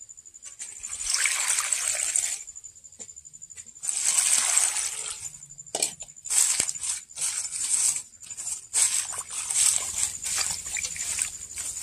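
Longan leaves being swished and rinsed by hand in a steel bowl of water: irregular sloshing and splashing in bursts, with short pauses between them.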